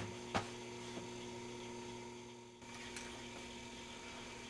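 Steady electrical mains hum, with two short clicks in the first half second.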